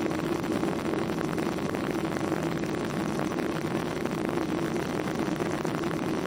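Steady cabin noise inside a Boeing 737-800 in flight: the CFM56 engines and the airflow over the fuselage make an even rush with a constant low hum.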